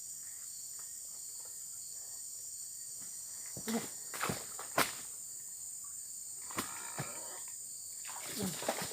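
Steady high-pitched drone of insects in the surrounding vegetation, with a few sharp clicks or knocks about halfway through and again near the end.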